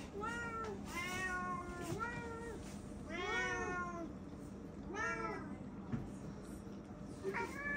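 Domestic cat meowing repeatedly: about six meows, each rising then falling in pitch, the one about three seconds in longer than the rest.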